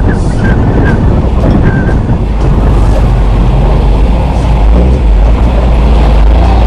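A 4x4 driving along a muddy track: engine and tyre rumble, heavily buffeted by wind on an outside-mounted camera microphone.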